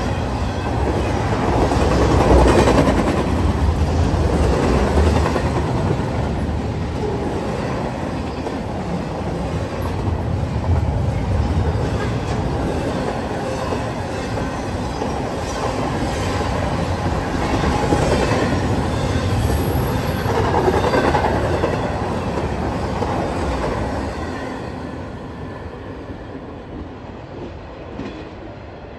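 Norfolk Southern double-stack intermodal train's well cars rolling past: a steady rumble of steel wheels on rail with clicking over the rail joints, swelling and easing as the cars go by, then fading away near the end as the last car passes.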